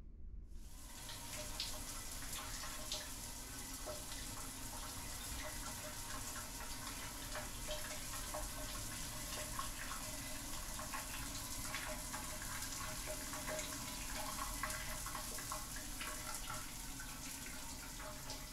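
Shower turned on about half a second in, then running steadily, water spraying and spattering in a tiled shower stall.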